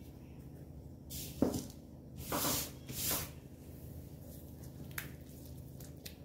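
Salt poured into a glass bowl and fingers mixing a wet herb, garlic and olive-oil marinade: a few short hissing rustles about one to three seconds in. Under it runs the steady low hum of a washing machine.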